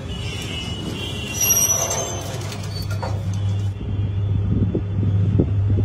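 An old passenger lift with a collapsible scissor-grille gate: a brief metallic clatter from the gate, then the cabin running with a steady low hum that grows stronger partway through, with a few light knocks near the end.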